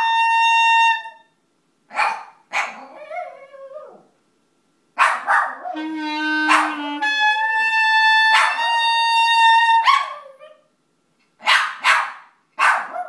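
A dog barking repeatedly at a clarinet, which plays long held notes. The clarinet stops near the end while the dog keeps barking.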